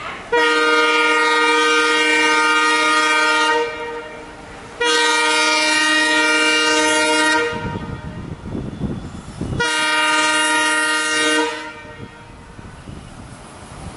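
WDM3D diesel locomotive's multi-tone air horn sounding three long blasts, each two to three seconds, as the train approaches on the curve. The rumble of the engine and wheels rises between the blasts and after the last one.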